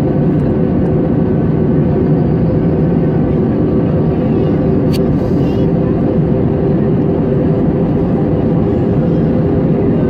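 Airliner cabin noise during landing: a steady roar of engines and rushing air with a low hum, and a short click about five seconds in.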